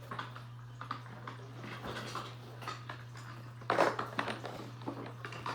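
Screwdriver clicking and scraping against the screws and plastic battery cover of a toy, with a louder cluster of knocks about four seconds in.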